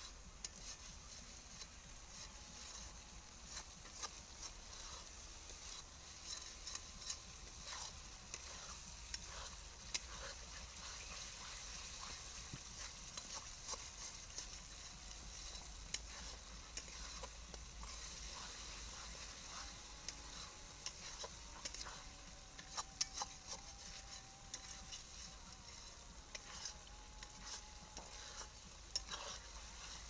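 Ground spice paste sizzling in a hot pan as it is fried down (the koshano stage of a curry), with a spatula stirring and scraping, and sharp taps against the pan every few seconds.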